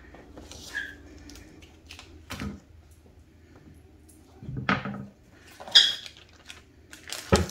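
Scattered knocks and clinks of kitchen utensils being handled, a handful of separate bumps with the sharpest, brightest clink a little after halfway.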